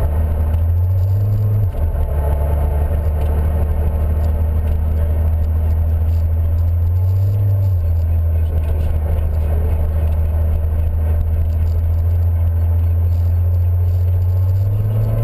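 Car engine droning with road and tyre noise, heard from inside the cabin while driving; the engine note drops and rises a few times as the revs change.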